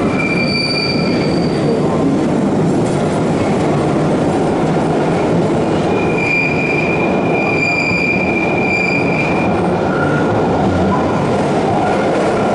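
London Underground Bakerloo line 1972 Stock train moving along the track, a loud steady rumble of wheels on rail. A high wheel squeal cuts in briefly near the start, then again for about three seconds from around six seconds in.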